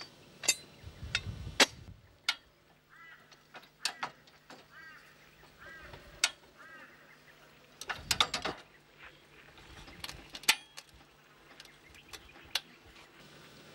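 High-lift (kangaroo) jack being worked under a four-wheel drive: sharp metal clanks from the handle and climbing pins every second or two, with a heavier clatter and thump about eight seconds in.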